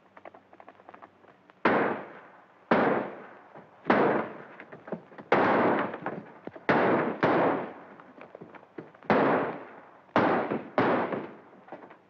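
A gunfight: about nine gunshots, each with a short ringing echo, coming irregularly half a second to a second and a half apart from about a second and a half in. Faint rapid hoofbeats sound before the first shot.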